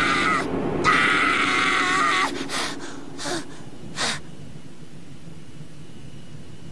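A young male cartoon character's held, high-pitched scream, cut off about two seconds in. It is followed by a few short, breathy rushes and then a quiet stretch with a faint steady high tone.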